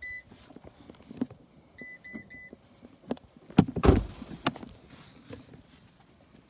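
A few short high electronic beeps, then several sharp knocks and clunks, the loudest about three and a half to four and a half seconds in.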